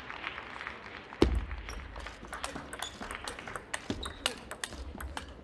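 Table tennis rally: a quick run of sharp clicks as the plastic ball is struck by the rackets and bounces on the table, with one heavy thud about a second in.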